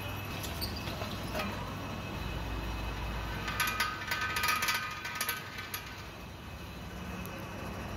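Drill press running with its bit boring through a shovel's steel socket into the wooden handle. From about halfway in come a couple of seconds of rapid clicking and a ringing squeal from the bit in the metal.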